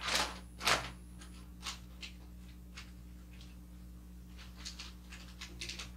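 Kraft wrapping paper rustling and crinkling as it is folded by hand around a box, with two louder crinkles in the first second and a cluster of smaller ones near the end.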